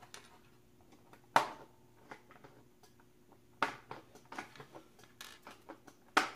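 Sharp plastic clicks and knocks as a dead battery-powered Crayola Crayon Carver is handled and checked, its motor silent. Three louder knocks come about a second and a half in, near the middle and near the end, with lighter ticks between them.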